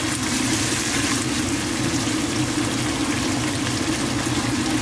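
Electric coffee maker gurgling and hissing steadily as it heats water, over the simmer of a tomato and onion sauce in a pan.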